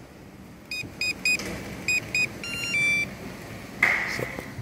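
Skoda Octavia Mk4 dashboard warning chimes as the ignition is switched on: five short, even electronic beeps, then a longer chime, followed near the end by a brief burst of noise.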